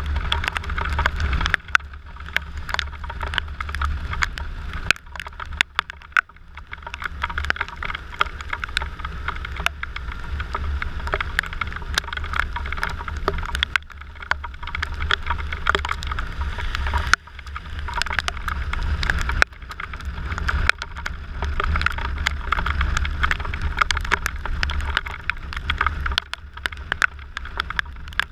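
Riding noise from a Suzuki Burgman 650 maxi-scooter at speed in heavy rain. A low wind rumble buffets the microphone, tyres and spray hiss on the wet road, and many sharp ticks come from raindrops striking the camera. The noise rises and falls with the speed, dipping briefly about 14 and 17 seconds in.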